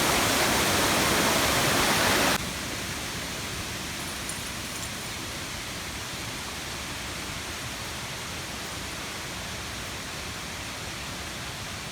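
Rushing water of a high-flowing waterfall, a loud steady roar that drops abruptly to a quieter, steady rush about two seconds in.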